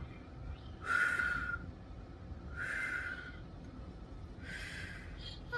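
A monkey giving three short, breathy huffs about one and a half to two seconds apart.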